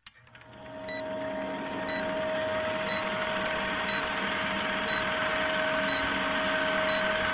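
Vintage film projector sound effect: a steady mechanical whirr with a rapid fine clatter and a faint tick about once a second. It builds up over the first second.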